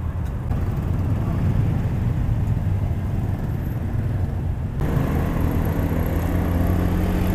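Motorcycle engines running with a steady low rumble. About two-thirds of the way through it changes abruptly to the even drone of a motorcycle riding along a street, holding a steady engine note.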